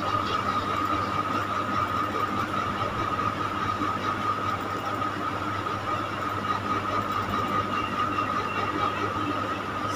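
Steady background hum and hiss with a constant whine, unchanging throughout, with a few faint ticks.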